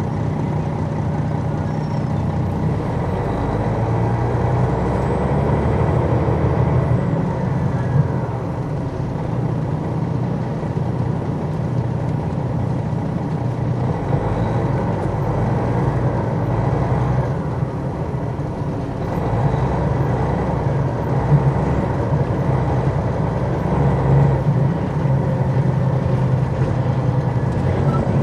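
Detroit Diesel Series 60 inline-six diesel of an MCI D4000 coach, heard from on board while the bus drives. The engine note shifts with the throttle, dropping about two thirds of the way through and then climbing again as the bus pulls away.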